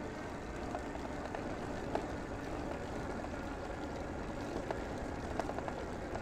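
Steady rushing road and wind noise of travel in a moving vehicle, with a few faint ticks.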